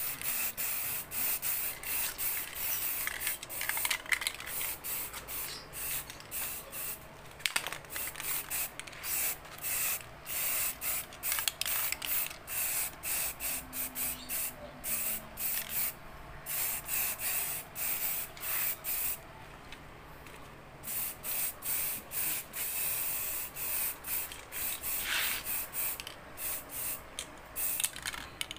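High-temperature black spray paint hissing out in many short bursts, one after another with brief gaps.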